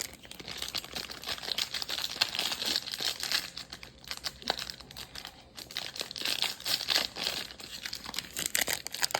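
Foil wrapper of a 2023 Score football trading-card pack crinkling as it is handled and opened, in irregular crackles that ease off briefly about halfway through.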